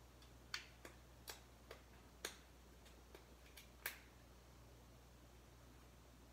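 About nine sharp little clicks and taps of small hard parts or tools being handled on the floor, spread over the first four seconds, the last the loudest. After that there is only a faint steady low hum.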